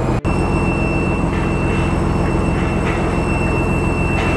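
Fishing boat's inboard diesel engine running with a loud, steady drone, heard inside the wheelhouse. After a brief dropout about a quarter-second in, a thin, steady high whine sits over it.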